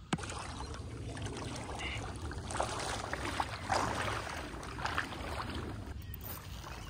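Footsteps wading through shallow water, with irregular sloshing splashes, over a steady low rumble.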